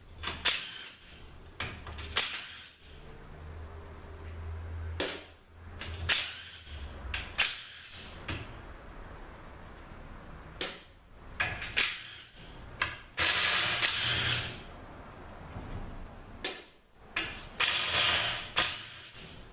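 Metal tools clanking and knocking on a THM-125C transaxle case as its oil pan is unbolted: a string of sharp knocks and clatters, with two longer noisy stretches of about a second each in the second half.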